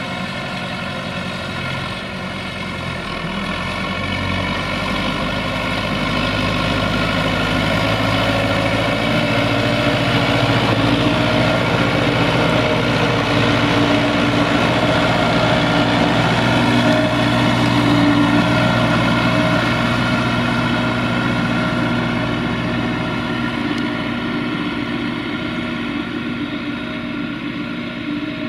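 Belarus MTZ 892.2 tractor's four-cylinder turbo-diesel engine running steadily under heavy load while it pulls a mounted plough through the soil. It grows louder as the tractor passes close by, then eases off near the end.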